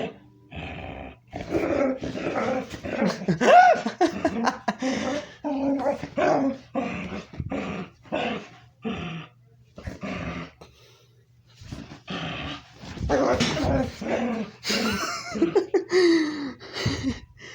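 A pet dog making a run of odd, weird vocal noises in short bursts. There are pitched rising-and-falling notes about three and a half seconds in and again near the end, and a pause of about two seconds midway.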